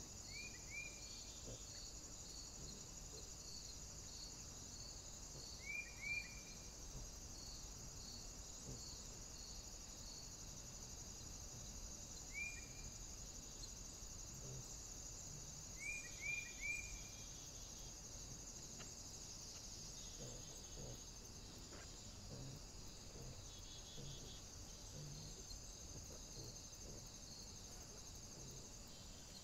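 Faint, steady chirring of crickets and other night insects, with a row of soft pulses about twice a second that stops about ten seconds in. Short falling chirps in twos and threes stand out several times.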